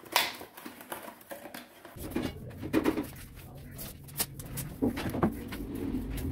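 A few light knocks and rustles as a cardboard box is handled, then a soft broom sweeping a tiled floor in short strokes over a steady low hum.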